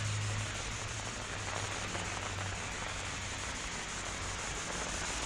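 Steady hiss of rain falling on wet pavement. A low hum fades out about half a second in.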